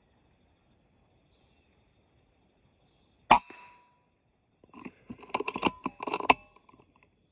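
Air rifle firing once about three seconds in, a sharp pop with a brief ring. About a second and a half later comes a quick run of sharp clicks and knocks lasting under two seconds.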